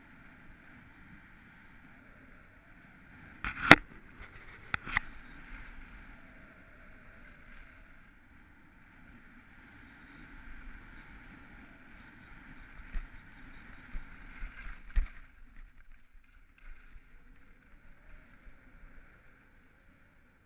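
Skis sliding and scraping over packed snow on a downhill run, a steady hiss. Two sharp knocks come a few seconds in, about a second apart, and another sharp knock about fifteen seconds in.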